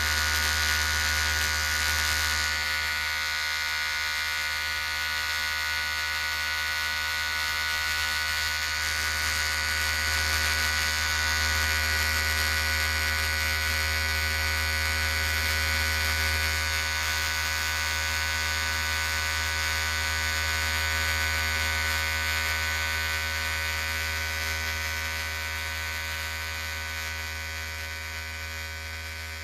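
Electric hair clipper running with a steady buzz, getting slightly quieter near the end.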